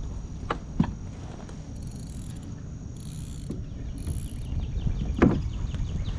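Wind rumbling on the microphone, with a few hollow knocks: two in quick succession under a second in, and a louder one about five seconds in.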